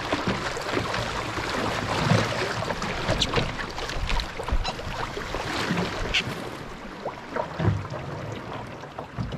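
Canoe moving through a rippling river current: water rushing and splashing against the hull, with paddle splashes and some wind on the microphone. The rush eases in the second half as the canoe comes into calm water by the shore, and a couple of low knocks come near the end.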